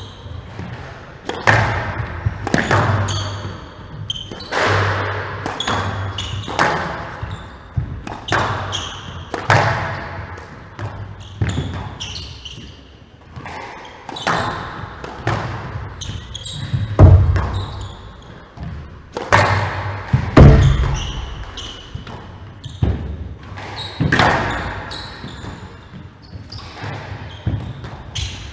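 A squash rally: the ball struck by rackets and smacking off the walls about once a second, with players' shoes squeaking on the wooden court floor. Two heavier thuds, the loudest hits, come in the second half.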